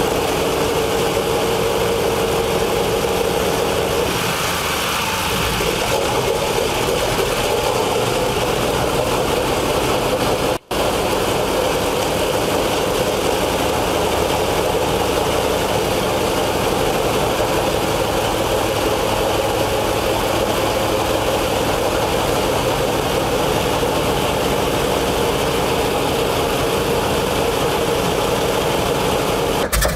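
Pratt & Whitney R-4360 Wasp Major, a 28-cylinder four-row radial aircraft piston engine, running steadily with its propeller turning. There is a brief break in the sound about ten seconds in.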